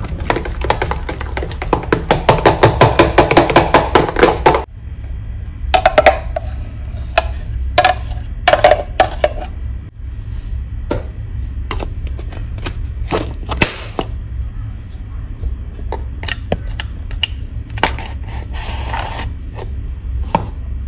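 A utensil stirring quickly in a vessel, mixing the mashed avocado with milk and water: a fast, even run of clinks that stops suddenly about four and a half seconds in. After it come scattered single clinks and knocks of kitchen utensils, over a steady low hum.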